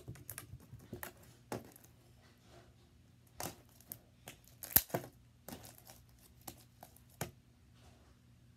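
Slime being squished and stretched by hand, giving off irregular sharp pops and crackles, the loudest pop about five seconds in.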